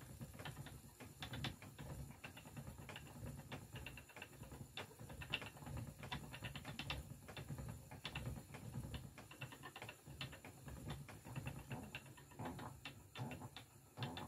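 Wooden treadle spinning wheel running: a faint, rapid, irregular clicking and tapping of its moving parts over a low rumble.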